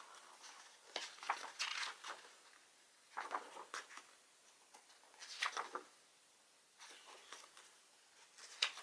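Pages of a paper photo book being turned by hand: short papery rustles and swishes in five groups, about one every two seconds, with a sharper flick near the end.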